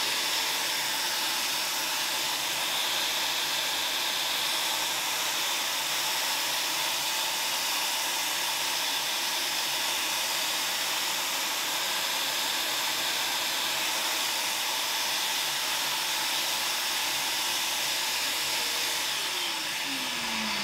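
Vacuum cleaner running steadily with a constant airy hiss as it draws through a vacuum ballasting head swept along model railway track, lifting loose ballast. Near the end its motor winds down in a falling whine.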